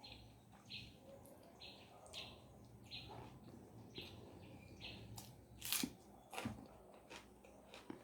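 Quiet chewing and biting of a mouthful of rice and fried food, with two louder sharp bites a little past the middle. Short chirps, like a small bird's, repeat about once a second behind it.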